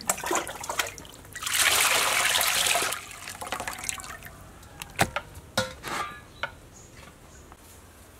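Water splashing in a metal basin as raw beef is rinsed, then a steady pour as water streams off the lifted piece of meat back into the basin, loudest for about a second and a half early on. A few light knocks follow near the middle.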